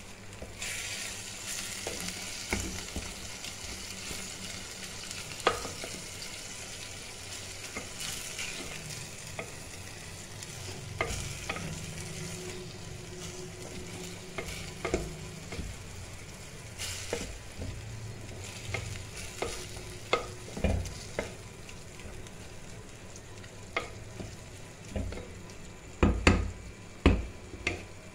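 Keema (minced meat) sizzling steadily in a terracotta pot as a wooden spatula stirs it, with scattered knocks of the spatula against the pot that come more often near the end.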